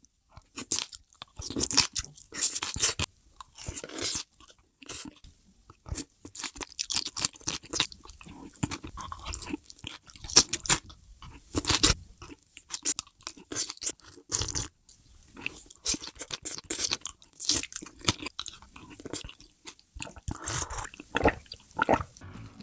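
Close-miked eating: crunchy bites and chewing, a dense, irregular run of sharp crunches with short pauses between mouthfuls.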